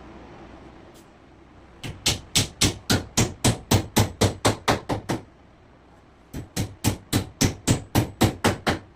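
Hammer striking plywood in two runs of quick, even blows, about four a second, a dozen or so in the first run and about ten in the second after a short pause.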